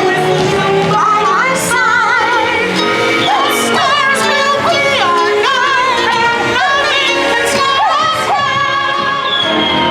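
Music with singing voices over a full accompaniment, the sung notes wavering with vibrato; a long tone slides downward near the end.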